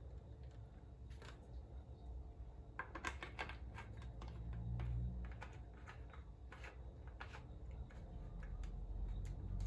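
Small clicks and taps of tripod and ring light parts being handled and fitted together, a quick cluster about three seconds in and scattered ones after, over low handling rumble.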